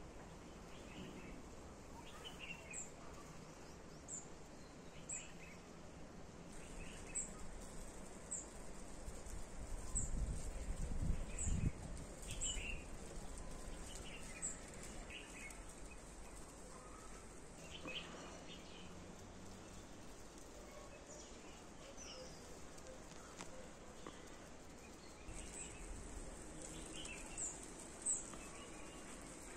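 Small birds chirping: short, high-pitched calls about once a second with lower chirps among them, over faint steady background noise. A low rumble swells for about two seconds around the middle.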